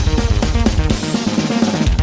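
Instrumental music track with drum kit. The bass drops out for about a second near the end, then comes back in.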